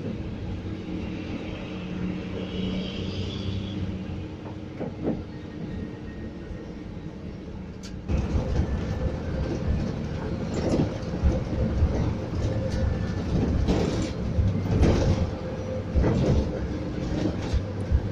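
Scania coach heard from inside the cabin while driving: steady engine hum and road noise. About halfway through it gets louder and rougher, with frequent knocks and rattles from the body over the road.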